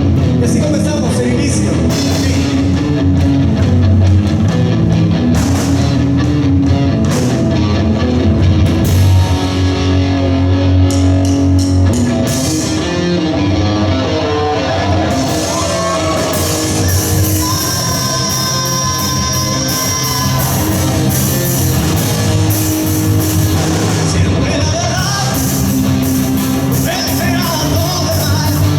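Live rock band playing loud: electric guitar, bass guitar and drum kit, with a singer's voice.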